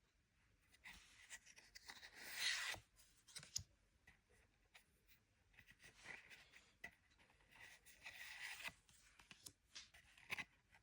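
Soft rustling and scraping of Pokémon card packaging and cards being handled, in two longer stretches with scattered light clicks and taps between them.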